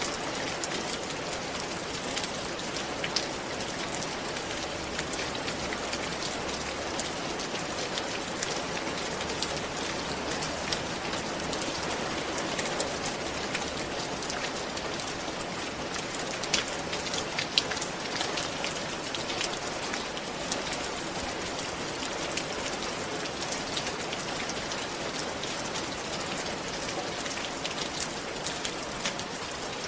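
Steady rain falling on a roof, an even hiss with many sharp individual drop ticks.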